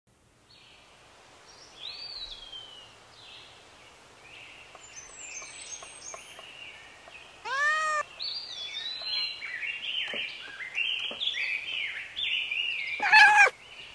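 Songbirds chirping throughout, with a cat meowing loudly about halfway through and again near the end.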